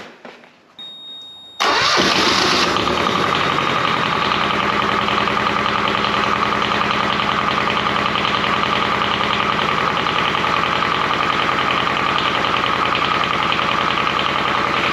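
Small Kubota engine of a homemade DC generator set starts up suddenly just under two seconds in, then runs at a steady idle.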